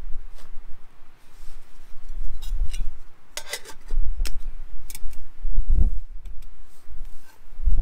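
Handling noise close to the microphone: a few sharp clicks and rattles about three to five seconds in, over a low rumble.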